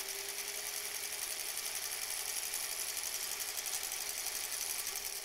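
Electric sewing machine running at a steady speed, stitching a straight seam, its motor humming under a fast, even clatter of the needle mechanism; it stops near the end.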